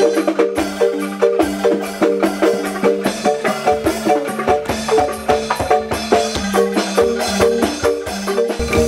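Music on bamboo xylophones playing a quick, evenly repeating melodic pattern over a held low note, with drum beats that grow stronger near the end.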